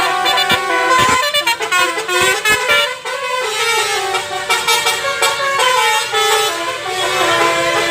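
Custom telolet 'basuri' multi-tone air horn on a car playing a melody: a run of held horn notes stepping from pitch to pitch. There are sharp clicks among the notes in the first three seconds.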